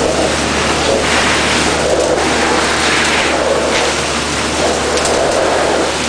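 Industrial vacuum hose sucking air and debris, a loud steady rush with a steady low hum from the vacuum unit underneath.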